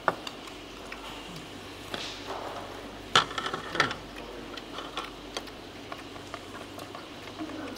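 Chopsticks and ladles clicking and tapping against bowls and the hotpot pan during a meal, scattered light clinks with a few sharper ones a little after three seconds in, over a faint steady room hum.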